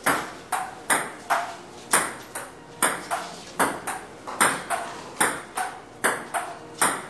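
A ping-pong rally played on a wooden dining table: the ball clicks sharply off the paddles and the tabletop in turn, about two or three clicks a second without a break.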